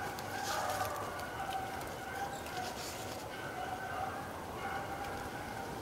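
Beagles baying in the distance as they run a rabbit, with overlapping drawn-out cries coming and going throughout.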